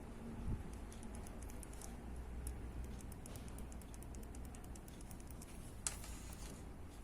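Kailh silent mouse micro switch (red, 7.3 mm) being clicked over and over: a run of faint, rapid, thin ticks, then one sharper click near the end.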